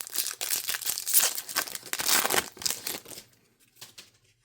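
Plastic wrapper of a trading-card pack crinkling and tearing as the pack is ripped open, stopping about three seconds in.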